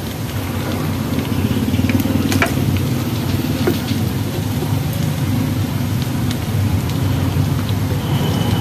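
Minced garlic sizzling in hot oil in a frying pan as it is stirred with a wooden spatula, with a few light taps of the spatula against the pan. A steady low hum runs underneath.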